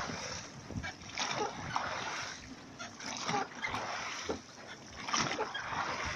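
Oars of a rowing sloep splashing through the water, a swell of splash with each stroke repeating every second or two.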